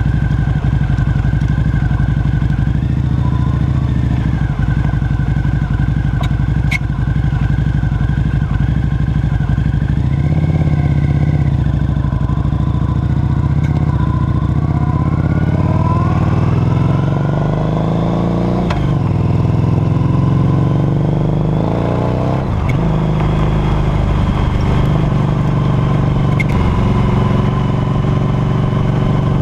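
Harley-Davidson Night Rod Special's liquid-cooled Revolution V-twin running under way, heard close up from the rear footpeg. The engine note rises and falls with the throttle, with two brief sharp dips in pitch about two-thirds of the way through.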